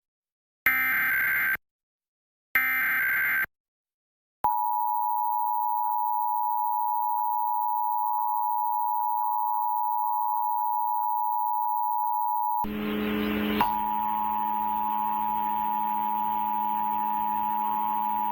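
Emergency Alert System test tones: the last two of the three SAME header data bursts, each about a second long with a second's gap, then from about four and a half seconds in the steady two-tone EAS attention signal. About two-thirds through, a low hum and hiss join under the tone.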